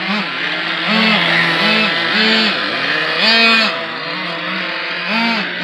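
Nitro RC car engines revving in quick, repeated throttle blips, about two a second, with the pitch rising and falling on each one, over a steady drone.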